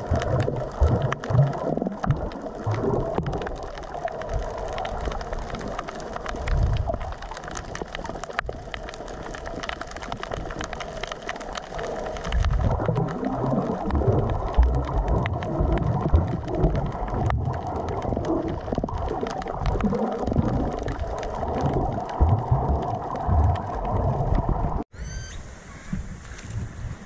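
Water heard through an underwater camera in shallow sea: muffled low rumbling and sloshing, with faint scattered clicks. About two seconds before the end it cuts to above water: small waves washing onto the beach, with wind on the microphone.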